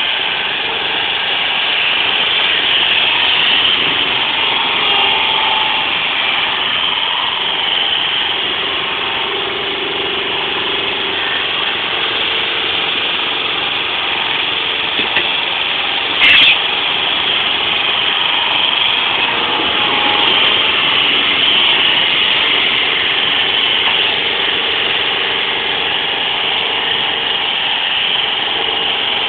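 Engine of a truck-mounted piggyback forklift running, its pitch rising and falling with the throttle as it drives and lifts pallets. One brief sharp knock about halfway through.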